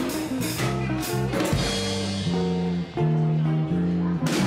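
Background music led by guitar, with drums keeping a beat.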